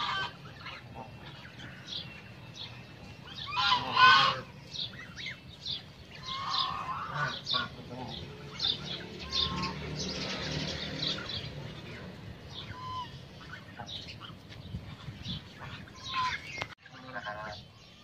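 A flock of white domestic geese calling while they graze: many short scattered honks, with a louder burst of honking about four seconds in.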